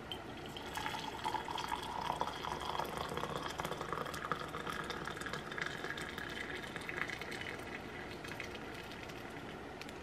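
Hot water poured from a glass electric kettle into a mug, a steady stream that rises in pitch as the mug fills, stopping near the end.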